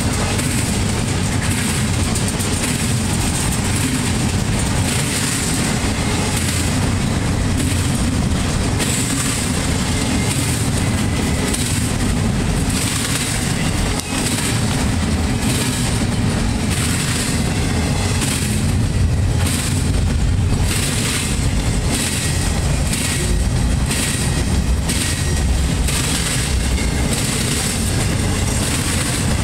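Empty intermodal well cars of a freight train rolling past at close range: a steady rumble of steel wheels on rail with rhythmic clacking as the wheels run over the track joints and the rail crossing diamond.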